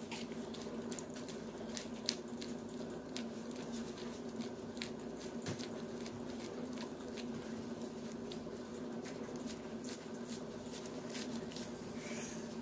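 A small dog licking peanut butter off a plastic zip-top bag: irregular wet tongue clicks and smacks, a few a second, over a steady low hum.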